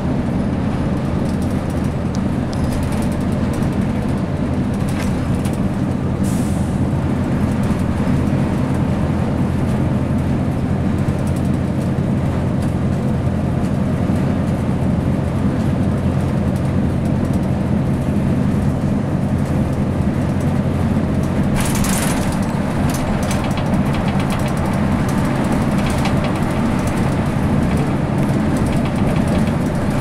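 A 2002 Blue Bird CS transit bus's Cummins ISC six-cylinder diesel engine running steadily, heard from inside the passenger cabin. A short hiss of air cuts in about twenty-two seconds in, with a fainter one earlier.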